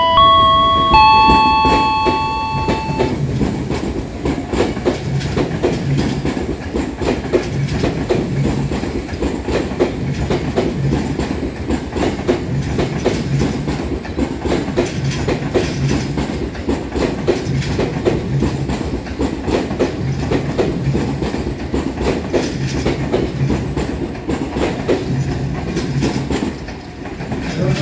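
KRL electric commuter train running past the platform, its wheels clicking over the rail joints in regular pairs about every second and a half over a steady rumble. A few seconds of chime tones sound at the very start.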